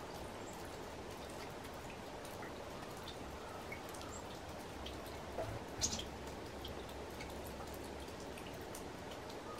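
Steady outdoor background hiss with scattered faint drip-like ticks and one louder click about six seconds in.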